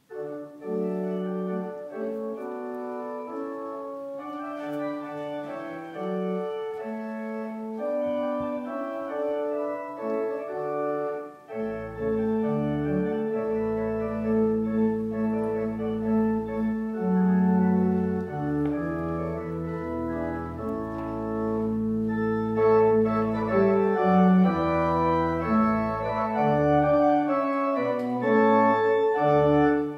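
Church organ playing a closing voluntary in slow, held chords. It starts suddenly after silence, and deep pedal bass notes come in about a third of the way through.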